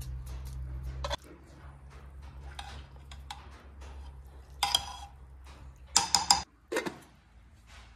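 Metal spoon clinking against an aluminium pot as the food in it is stirred: one knock about halfway through, then a quick run of clinks and a last one a little later.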